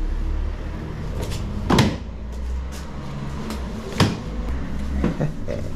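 Knocks and clicks from a rider handling and mounting a scooter, with two sharper thumps, one about two seconds in and one about four seconds in, over a low steady rumble.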